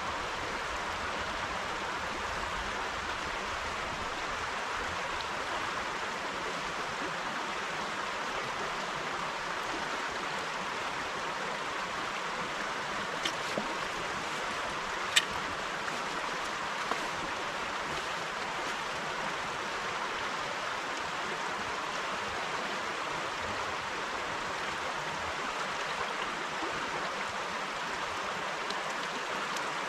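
River water running steadily over stones, an even hiss, with a few sharp clicks around the middle.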